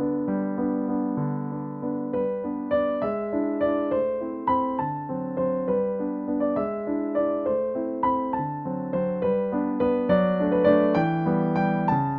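Background piano music: soft, gently paced notes, a new note or chord roughly every half second.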